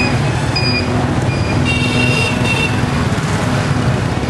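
Busy street traffic running steadily, with several short horn toots in the first three seconds.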